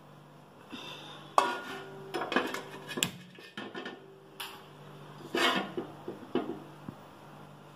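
A large metal cooking pot being handled on a gas stove: a series of separate metal knocks, clinks and scrapes, with a faint steady low hum underneath.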